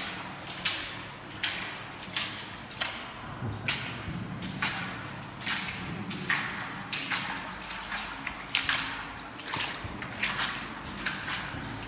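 Steady walking footsteps in shallow water along a concrete tunnel floor, a wet splashing step about every three-quarters of a second.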